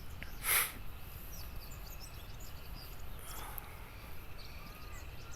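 Outdoor morning ambience: small birds chirping now and then over a steady low rumble, with one brief noisy swish about half a second in.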